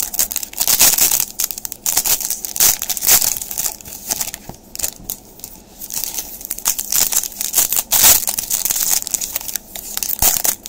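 Plastic trading-card pack wrapper crinkling and tearing as a pack of baseball cards is torn open and handled close to the microphone, a continuous run of sharp crackles.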